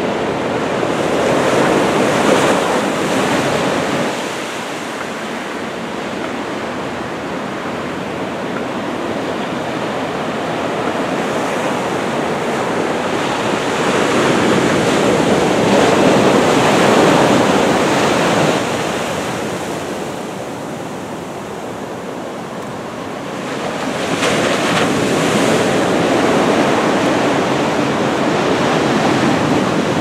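Heavy surf from a typhoon swell breaking and rushing onto the beach, a steady roar of whitewater that swells louder with each set of waves, about three times.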